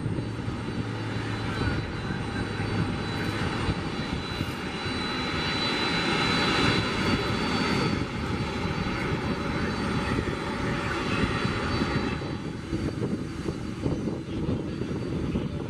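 ATR twin-turboprop airliner climbing out at takeoff power: a full engine and propeller roar with a thin high whine. It swells to its loudest about halfway through, then fades as the plane climbs away. Near the end it gives way to a quieter, steadier background noise.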